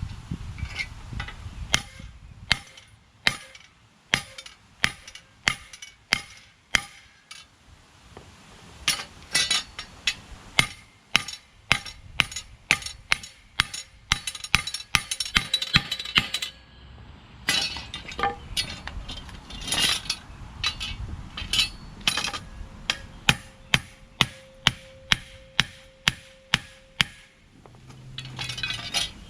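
Hammer blows on a bent metal push-mower handle, banging it back into a curved shape: dozens of sharp, ringing metallic strikes in irregular runs, with a short pause about 17 seconds in.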